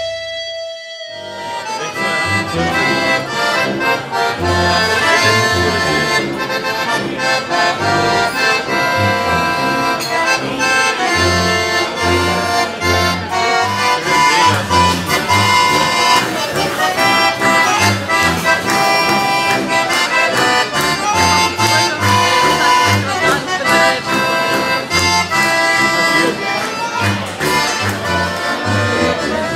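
Live accordion and tuba playing traditional music, the accordion carrying the melody over regular bass notes from the tuba. It begins about a second in.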